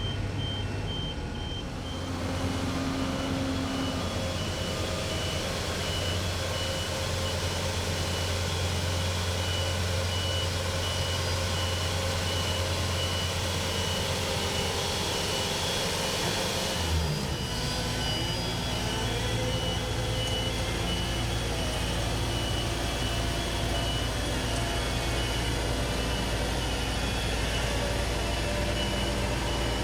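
Backup alarm on construction machinery beeping steadily over a heavy engine running. A little over halfway through there is a brief thump and the engine note changes.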